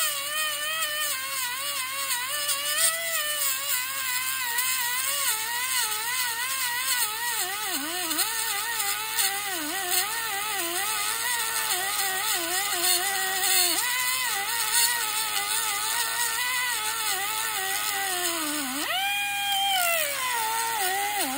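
Background music: a single wavering, gliding lead melody line that holds on without a break, with a jump up and a slow slide down near the end.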